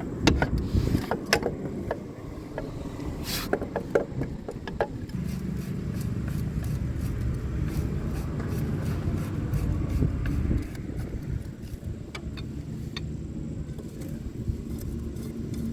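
Metal clicks and knocks of parts and hand tools as a kick-start cover is fitted to a scooter's gearbox, mostly in the first few seconds with a few more near the end, over a steady low rumble.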